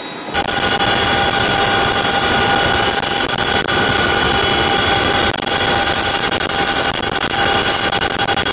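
CH-47 Chinook helicopter heard from inside the cabin in flight: loud, steady engine and rotor noise with several steady whining tones over it. It cuts in abruptly just after the start.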